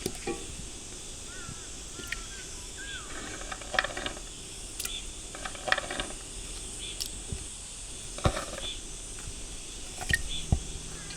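Steady rush of a valley stream, with scattered light clinks and knocks and a few short chirps a second or two in.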